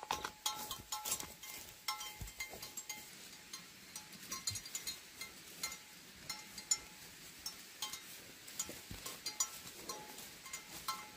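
A bell clinking in short bursts at the start and again near the end, with light clicks and knocks scattered between.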